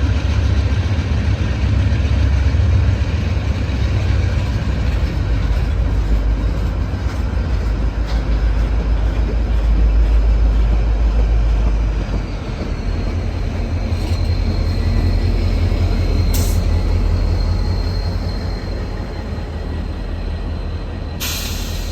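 VIA Rail passenger train passing with a heavy, steady low rumble. About halfway through a thin high whine joins in, and there are two short hissing bursts near the end.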